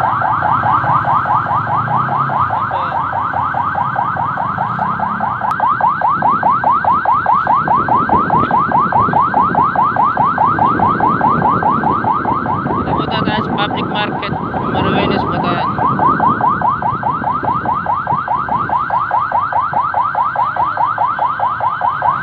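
Electronic emergency-vehicle siren in yelp mode: a loud, rapid rising-and-falling wail repeating several times a second without a break. A few short high chirps cut in about 13 seconds in.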